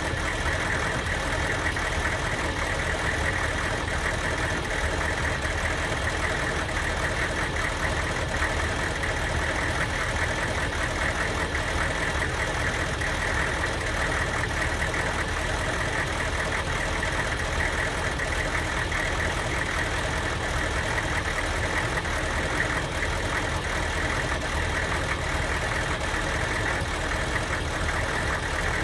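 Diesel van engine idling steadily, with the misfire that the owner blames on an aftermarket Kojo computer tune.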